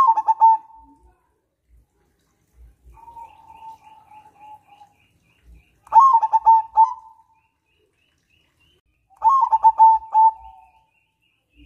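Zebra dove (perkutut), a crossbred bird, singing its cooing song: three loud phrases of quick stuttering coos, one at the start, one about six seconds in and one about nine seconds in, with a softer, drawn-out coo between the first two. A faint, rapid chirping from another bird runs beneath.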